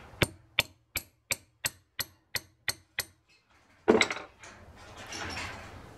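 Hammer tapping a steel pin punch, about nine quick ringing strikes at roughly three a second, packing grease-soaked cloth fibre down the bore onto a stuck dowel pin so that hydraulic pressure will push the pin out. A single louder knock comes about four seconds in, followed by rustling.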